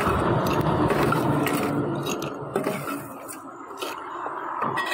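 Crushed ice being tipped into tall drinks glasses: scattered clinks and scrapes of ice against glass over a steady background hum, quieter in the second half.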